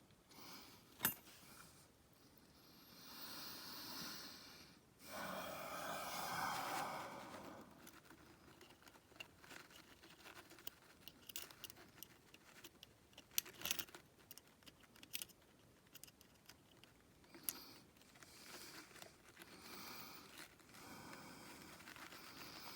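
Faint, scattered clicks and light scrapes of small hand tools and metal parts being worked by hand while a circlip is fitted, with a soft rustle a few seconds in.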